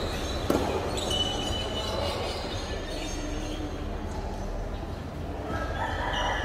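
Tennis ball struck once by a racket about half a second in, a single sharp crack, over a steady low rumble. A few short high squeaks come later.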